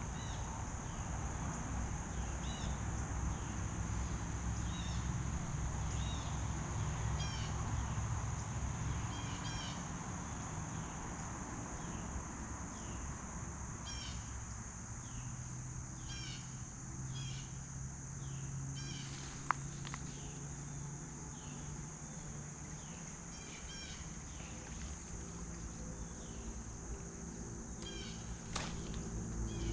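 Outdoor late-summer insect chorus: a steady high-pitched drone of crickets, with short chirps repeating every second or two and a low steady rumble underneath. A single sharp click about twenty seconds in.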